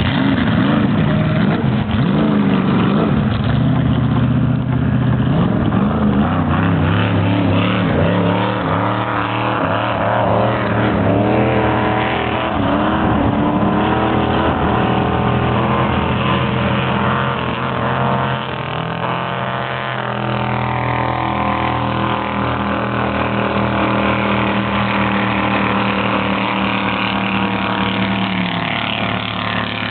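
Several jet boat engines running hard at once, their overlapping engine notes wavering up and down in pitch. Past the middle the sound dips a little and settles into a steadier note.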